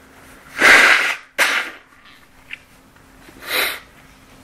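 Nose runny from pollen allergy: a sneeze of two loud breathy bursts, the second starting sharply, about a second in, then a sniff near the end.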